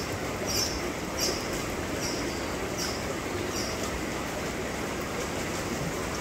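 Steady rain hiss, with a string of short, high chirps from a caged lovebird about every 0.7 s for the first four seconds.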